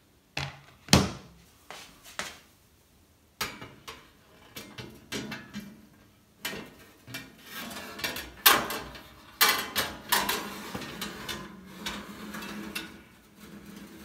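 Metal wire rack and baking tray being handled and slid into an oven: a string of sharp clanks and knocks, the loudest about a second in and again past the halfway mark, with rattling and scraping of metal on the oven's rack runners in the second half.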